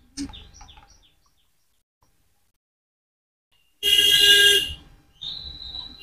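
Indian ringneck parrot calling: a few short falling chirps at the start, then a loud, harsh squawk about four seconds in, followed by a high, steady whistled note near the end.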